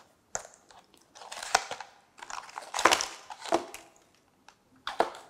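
A small cardboard product box being opened and unpacked: irregular crunching and crinkling of card and plastic bags, with sharp clicks. The rustling is busiest in the middle, with a last click near the end.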